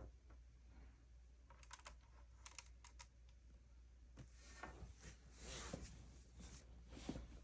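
Faint, scattered small plastic clicks and rustles from Lego truck models being handled as their hoods are tilted open.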